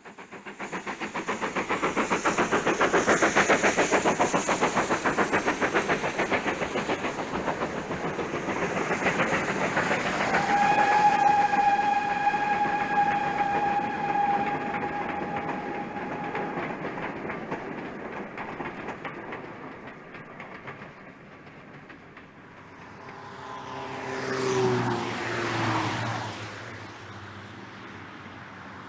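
Bassett-Lowke GNR Atlantic 4-4-2 live-steam model locomotive running: rapid steam exhaust beats, loudest in the first ten seconds. About ten seconds in, a whistle blows one steady note for about six seconds, then the exhaust dies away, with a brief louder clatter near the end.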